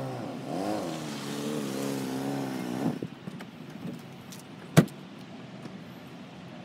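A compact minivan's engine running as it pulls in and stops, its pitch rising and falling, then cutting off about three seconds in. A car door slams shut once about five seconds in.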